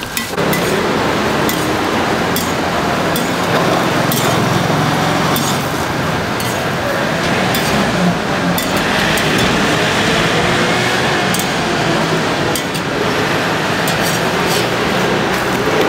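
Steady, busy ambience of a market food stall: continuous noise with indistinct voices, broken by occasional sharp clinks and knocks.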